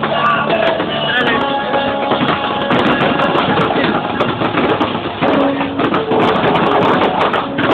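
Music mixed with many voices from a large crowd, dense and steady, with no distinct firework bangs.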